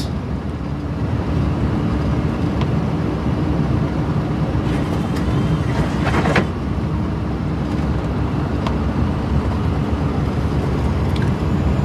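Steady rumble of a Scania plow truck's engine and plow pushing through fresh snow, heard from inside the cab. A windshield wiper sweeps across the glass about six seconds in.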